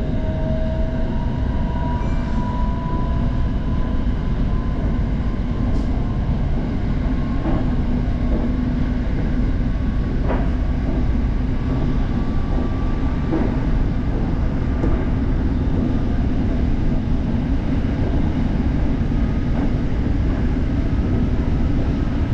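SRT Red Line electric commuter train running, heard from inside the carriage: a steady rumble with a faint whine that slowly rises in pitch near the start and again around the middle, and a few light clicks.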